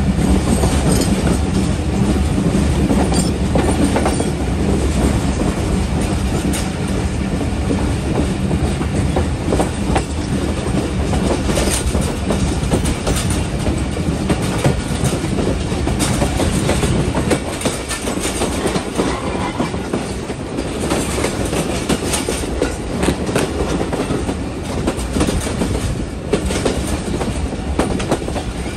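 Passenger train coach rolling along, its wheels clacking over rail joints above a steady rush of rolling noise and wind, heard at an open door or window of the coach. The low rumble eases for a few seconds past the middle.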